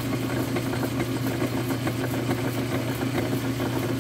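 Metal lathe running steadily, its spindle turning a large metal disc, with an even low hum from the motor and gearing.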